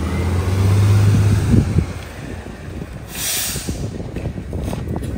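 Rear-loader garbage truck's diesel engine pulling away, loud for the first second and a half and then easing off. About three seconds in comes a short hiss of air brakes as the truck stops, followed by scattered clunks and rattles.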